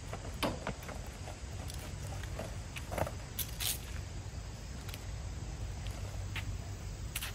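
Scattered light clicks, knocks and rustles of cooking gear and plastic containers being handled on a picnic table, with footsteps on a concrete pad, over a steady low rumble.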